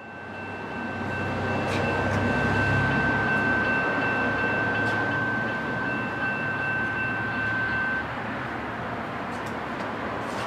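Distant rumble of an approaching freight train's diesel locomotives, fading up at the start and then steady. A steady high ringing tone runs over it and cuts off about eight seconds in.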